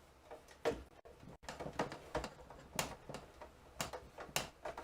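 Scattered light clicks and knocks, unevenly spaced at about one a second, from computer hardware and cabling being handled on a workbench.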